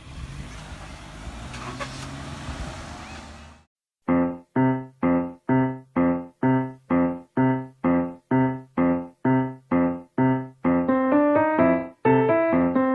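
A train running past, with a steady rumble that cuts off abruptly about three and a half seconds in. After a brief silence, piano music begins: short repeated chords, about two and a half a second, moving into held chords near the end.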